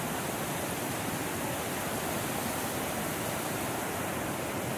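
Tahquamenon River's Lower Falls rushing over shallow stone ledges in white-water cascades: a steady, even rushing of water.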